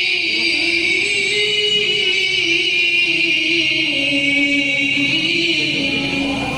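A qari's voice chanting Quran recitation, one long melismatic note held without a break, wavering and slowly sinking in pitch.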